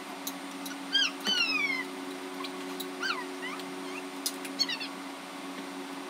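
Short, high animal calls, several sliding down in pitch, the longest about a second in, over a steady low hum.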